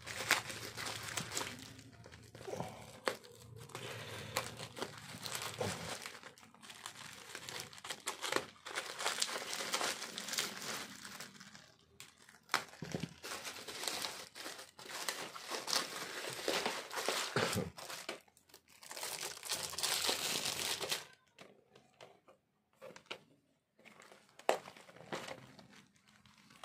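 Bubble wrap being pulled open and crinkled by hand, in a dense, continuous rustle. About three-quarters of the way through it goes quieter, leaving a few scattered clicks and rustles as a clear plastic tray is handled.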